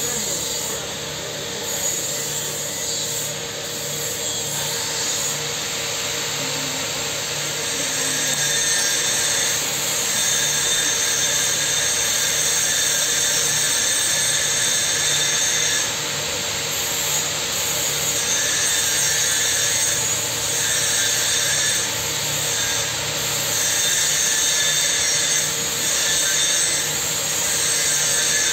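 Steady machine and power-tool noise from a welding workshop, a continuous hiss with a constant hum, growing louder about eight seconds in.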